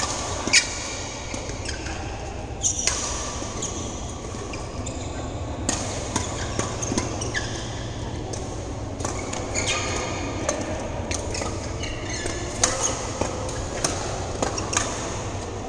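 Badminton rackets hitting a shuttlecock during a rally: a string of sharp hits, mostly a second or two apart, echoing in a large hall.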